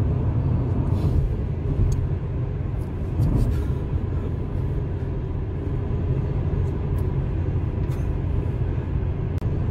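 Steady low road and engine rumble inside a car cabin driving along a highway, with a few faint clicks.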